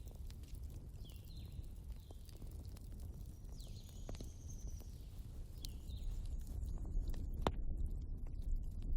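Wood fire burning: a low steady rumble with scattered crackles and sharp pops, one louder pop late on. A few short high chirps sound over it.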